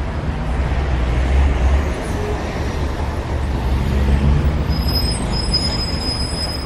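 Steady low rumble of road traffic, with a faint thin high tone in the last couple of seconds.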